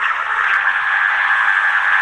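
Steady electronic buzz from a device's low-battery warning sound effect.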